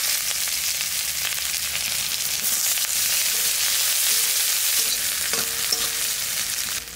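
Sliced onions sizzling loudly as they fry in hot oil in an aluminium kadai, with a metal spatula scraping the pan as they are stirred.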